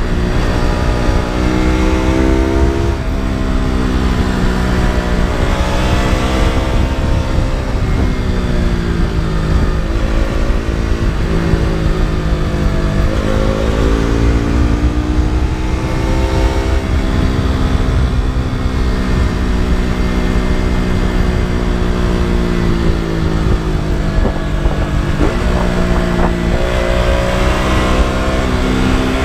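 KTM RC 200's single-cylinder engine and exhaust under way, the pitch climbing and dropping back several times as the throttle opens and closes through bends. There is a longer, steadier stretch in the middle and a sharp drop in pitch about three seconds in, again near eleven seconds and near twenty-five seconds.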